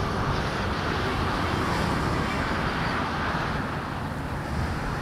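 Wind buffeting the microphone over the steady low rumble of a distant steam train running past with its carriages, with no distinct exhaust beats.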